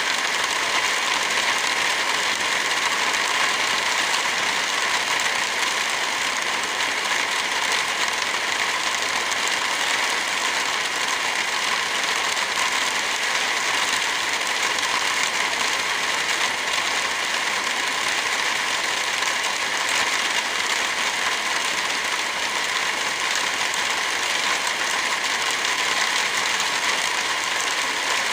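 Heavy rain falling steadily, a dense even hiss without thunder.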